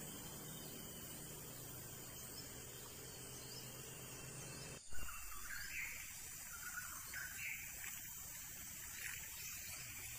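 Steady outdoor background hiss, broken by a single sharp click about halfway through; after it a few faint short chirps come through.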